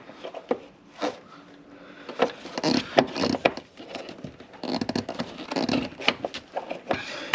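Irregular plastic clicks, knocks and scraping as the fuel line quick-release connectors on top of a fuel pump flange are pressed and worked loose.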